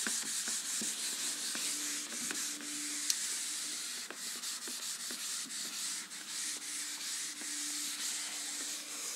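Handheld whiteboard eraser wiping marker off a whiteboard: a dry, hissing rub in quick, repeated back-and-forth strokes.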